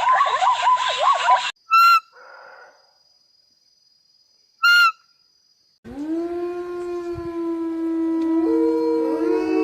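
Rapid repeated chirping animal calls stop after about a second and a half, and two short beeps follow. About six seconds in, a chorus of wolves begins howling: long, steady howls that overlap, with more voices joining near the end.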